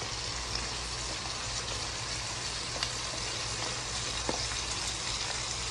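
Breadcrumb-coated dhub pieces, straight from the freezer, deep-frying in hot oil: a steady sizzle with scattered small crackles.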